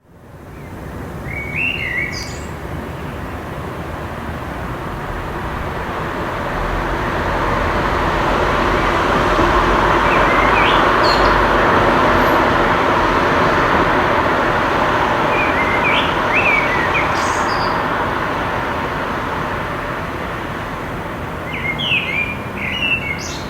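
Small songbirds chirping in short phrases, four times or so, over a wash of distant city traffic that swells slowly through the middle and eases off again.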